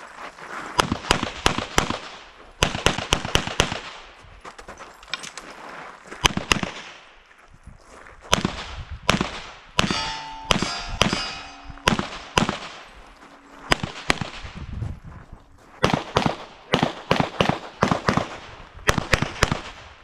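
Competition pistol fired in fast strings of shots, double taps and short volleys separated by brief pauses. About halfway through, a pitched ringing tone holds for a few seconds between the shots.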